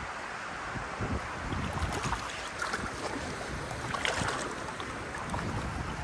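Gusty wind buffeting the microphone over the steady rush of river water, with a short burst of noise about four seconds in.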